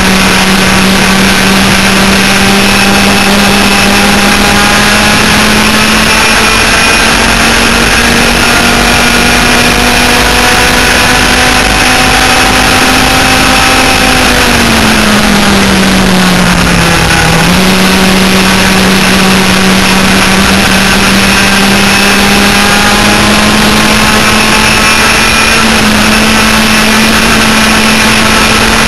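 Twin 100cc two-stroke engines of a laydown enduro racing kart running loud at full throttle, the note climbing slowly as the kart gathers speed. About halfway through the pitch falls away for two or three seconds as the driver eases off, then snaps back up and climbs again.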